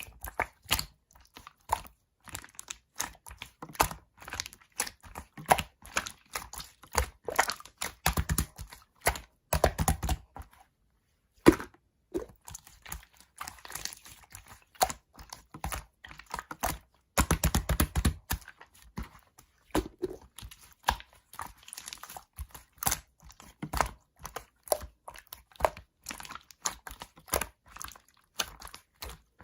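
Hands working slime: a dense stream of small sticky clicks and pops, with quick runs of rapid popping about eight seconds in and again near seventeen seconds, and a brief pause around the eleventh second.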